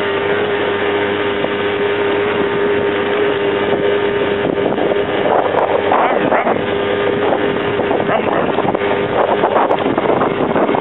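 ATV engine running steadily with a constant drone as the quad climbs a gravel track slowly, with wind noise on the microphone that gets gustier through the middle.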